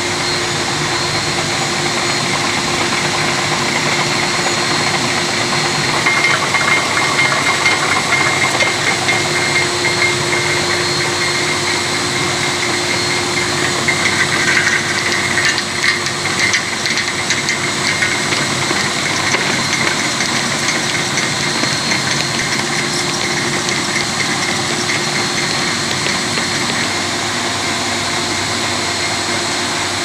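Two-layer rotary tablet press running while it presses dishwasher tablets: a steady mechanical hum with several high, steady whines. About 6 seconds in, and again around 14 to 17 seconds, a louder, busier clattering rises over the hum.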